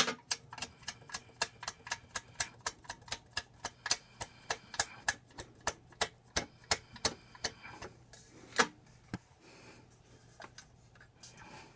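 Ratchet wrench clicking in quick, slightly uneven runs, about five clicks a second, as the exhaust header nuts are run down. After about eight seconds the clicking thins to a few scattered clicks.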